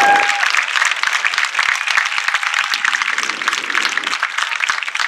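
Crowd applauding after a marching band's show: dense, steady clapping, with a single held tone that cuts off about half a second in.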